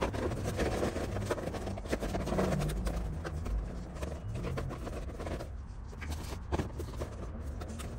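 A coiled Starlink cable being handled and pressed into a foam packing tray in a cardboard box: rustling, scraping and light clicks that ease off about five and a half seconds in, then only a few scattered clicks.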